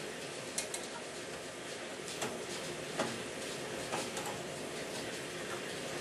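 A handful of short, sharp metallic clicks and clinks from a nut driver and screws working against the sheet-metal burner assembly of a gas furnace as it is fastened back in place.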